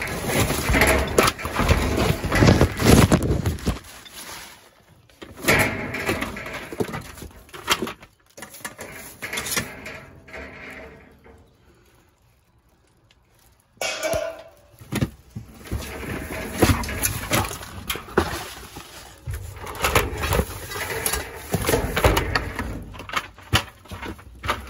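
Rummaging through a dumpster full of household junk: plastic bags crinkling and objects knocking and clattering as they are moved, with a quiet lull about halfway through.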